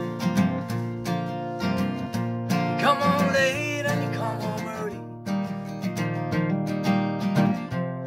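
Steel-string acoustic guitar with a capo, strummed in a steady rhythm. A man's voice sings a line about three seconds in.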